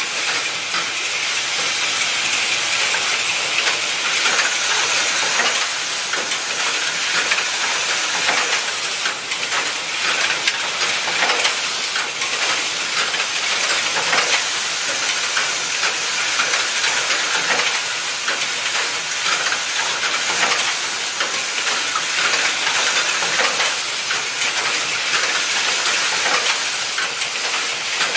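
Automatic junction-box assembly machine running: vibratory bowl feeders rattling their loads of small metal parts, with a steady hiss and frequent light clicks from the pneumatic actuators.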